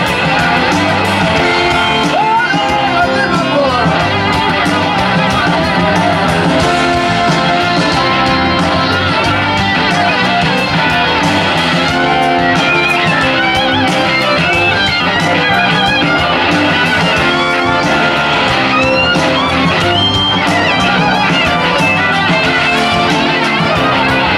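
Live rock band playing blues-rock: an electric guitar solo on an SG-style guitar, with gliding notes, over bass, drums and rhythm guitars.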